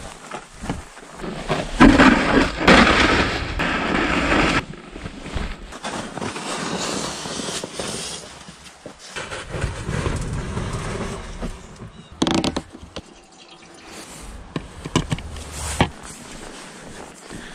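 Snow shovel scraping and pushing through snow in irregular bursts, loudest a couple of seconds in, with shorter scrapes later on.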